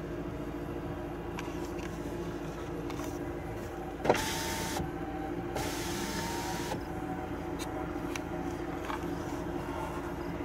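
Car's electric power window motor running in two short bursts, each with a steady whine and a rush of air, after a sharp click about four seconds in, over the steady hum of the idling car.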